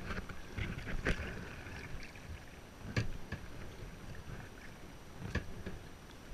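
A kayak being paddled: water sloshing and splashing off the paddle, with a few sharp knocks about a second in, at three seconds and a little past five seconds.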